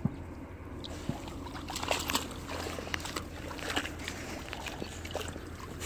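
Light handling rustles and small sloshes of pond water at a marsh edge, over a steady low rumble.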